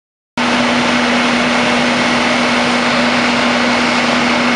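Fire truck's diesel engine running steadily at the fire scene, a loud constant drone with one steady low hum through it. It cuts in suddenly shortly after the start.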